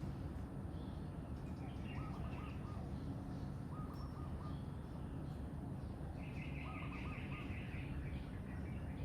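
Several birds calling over steady low background noise: a short run of four or five notes repeated three times, a fast trill about six seconds in, and scattered higher chirps.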